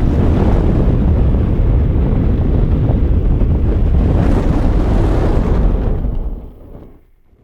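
Loud, steady roar of flames that swells in quickly, holds for about six seconds, then fades out near the end.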